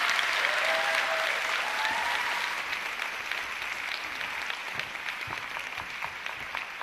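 Audience applauding at the end of a talk, loudest at first and slowly thinning out into more scattered, separate claps.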